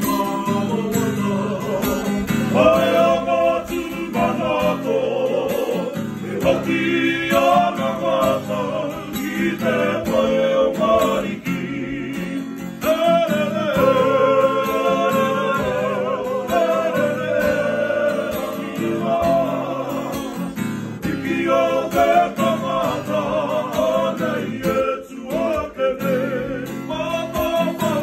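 A group of men singing a Māori waiata together, accompanied by a strummed acoustic guitar.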